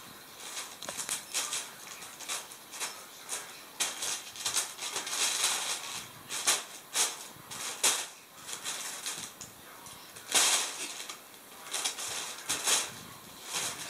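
A plastic bag rustling and crinkling in irregular bursts as a kitten plays in and under it. The loudest crackle comes about ten seconds in.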